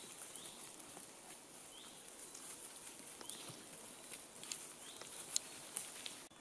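Finnsheep grazing close by: crisp clicks of grass being torn and chewed, scattered irregularly. Short high rising chirps repeat faintly in the background.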